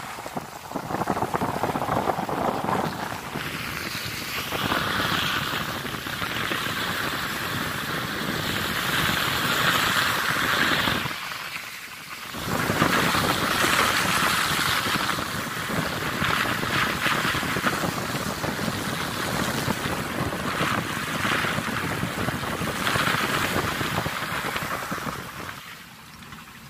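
Pickup truck driving on a wet dirt road: a steady rushing hiss of tyres on the wet surface, mixed with wind buffeting the microphone held outside the window. The noise drops out briefly about twelve seconds in and grows quieter near the end.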